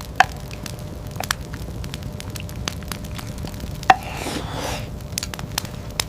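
Irregular sharp crackles and clicks over a steady low rumble, with a brief hiss about four seconds in.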